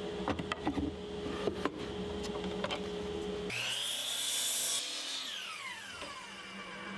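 Knocks and clicks as a board is handled on a miter saw table. Halfway through, the saw's motor whines up to speed and the blade cuts through a pressure-treated pine 1x4. The blade then winds down with a falling whine.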